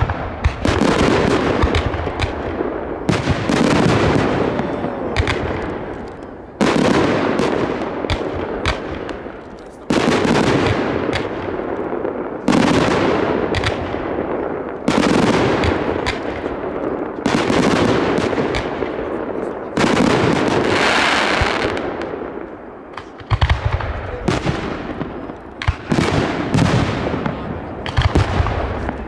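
Aerial firework shells bursting overhead, a loud sharp bang with a long fading tail every two to three seconds. Over the last few seconds a run of quick crackling pops follows.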